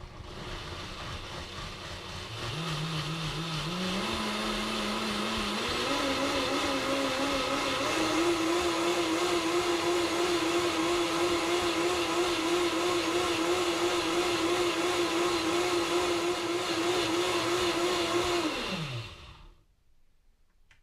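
Vitamix S55 personal blender motor blending a tomato and olive-oil dressing: it starts at low speed, climbs in pitch step by step through the speeds to the highest over about the first eight seconds, and runs steady at top speed. Near the end it is switched off and winds down with a falling pitch.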